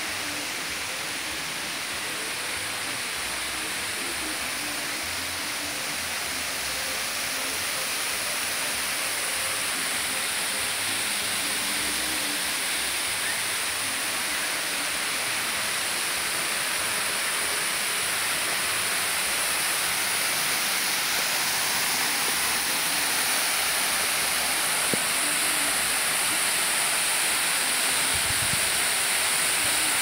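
Waterfall: water falling down a steep mossy rock face, a steady rushing hiss that grows slowly louder.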